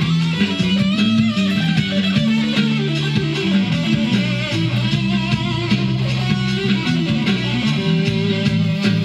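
Live instrumental rock jam: an electric guitar plays wavering, bending lead lines over sustained bass notes, with a steady beat of percussive hits.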